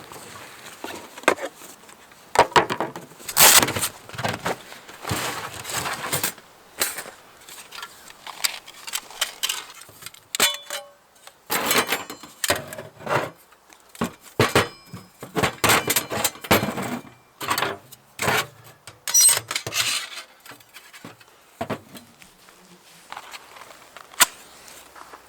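Irregular clinks, knocks and rustles of camp cooking gear and wood being handled, a quick run of separate sounds with short pauses between them.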